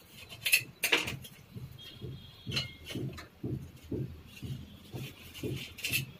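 A table knife sawing through crisp toasted bread on a metal plate: short scraping strokes about two a second, with a few sharp clinks of the blade against the plate, one near the start and one near the end.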